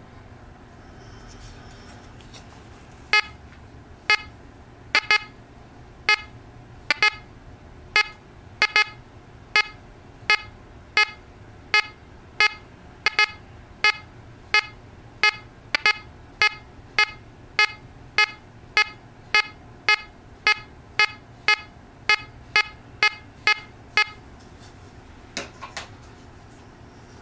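Teknetics Gamma 6000 metal detector with a 5x8 DD coil giving a short beep each time a coin is swept past the coil, about thirty beeps at roughly one to one and a half a second, sometimes in quick pairs. Each beep is the target response for a coin registering a target ID of 56–57.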